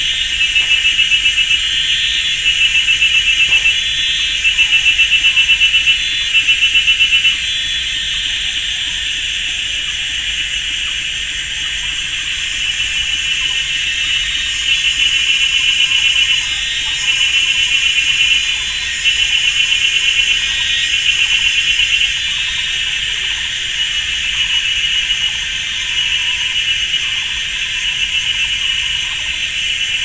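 Chorus of cicadas, very loud: a continuous high, shrill drone overlaid with louder pulsing phrases about a second long, repeating every two seconds or so. The phrases drop back to the steady drone for several seconds in the middle.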